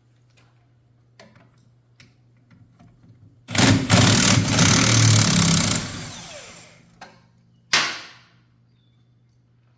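A handheld power tool runs in a loud burst of about two seconds that dies away over the next second, then a second short burst near the end, backing out the brake caliper's mounting bolts. A few light clicks of tool handling come before it.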